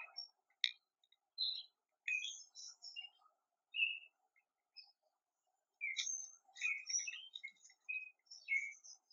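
Wild birds chirping and calling in short, scattered notes, with a lull in the middle and a single sharp click under a second in.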